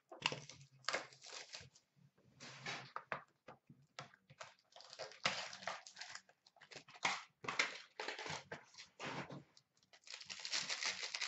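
Plastic shrink wrap crinkling and tearing as a sealed hockey card box is unwrapped by hand: irregular rustles and crackles, densest near the end.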